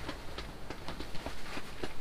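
Scattered light clicks and taps, several a second and irregular, over a low steady rumble.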